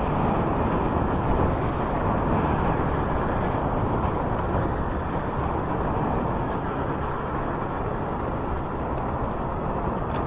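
Suzuki 1200 Bandit inline-four motorcycle cruising at a steady speed, its engine and road noise under a constant rush of wind over the microphone.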